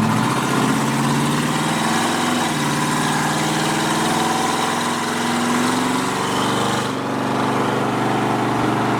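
Corvette Stingray V8 running through newly fitted side-pipe exhaust while driving, running smooth on fresh spark plugs. Its pitch drops about two and a half seconds in, climbs slowly, then dips again near the end.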